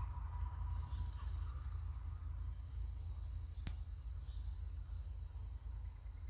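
Steady low rumble of wind buffeting the phone's microphone, with a single sharp click a little past the middle and a faint, steady, high insect drone joining about halfway through.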